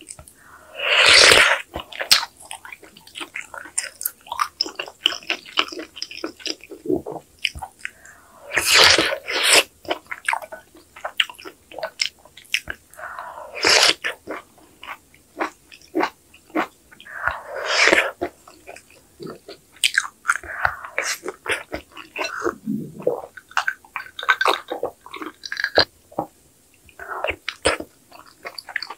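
Someone eating spoonfuls of kimchi sujebi, hand-torn dough soup: about four long, loud slurps of broth and dough, with steady wet chewing and mouth clicks between them.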